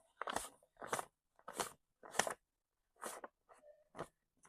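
Paper money being counted by hand: a run of short, crisp papery swishes as bills are flicked over one after another, about one every half second to second.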